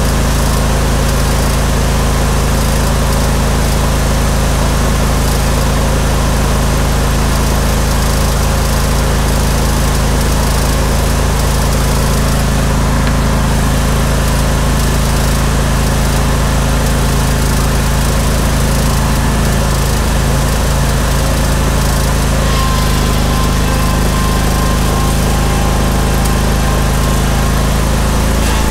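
Steel Green spreader-sprayer's Briggs & Stratton Vanguard 21 hp V-twin engine running steadily. A faint high tone joins about three-quarters of the way in.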